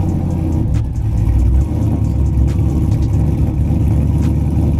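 Chevrolet Silverado's 5.3-litre V8 idling just after a cold start. It runs through 1 7/8-inch long-tube headers, a 3-inch X-pipe true dual exhaust and two Flowmaster FX mufflers, giving a steady, deep, kind of loud exhaust rumble.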